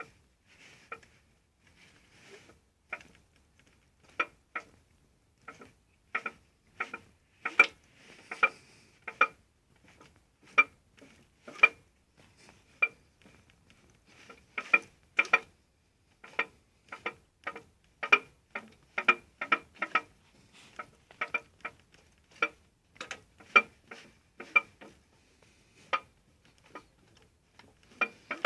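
Suzuki GSX 600 F inline-four engine being cranked, giving sharp metallic knocks at uneven spacing, roughly one to two a second. The owner asks whether the knock is a worn bearing shell.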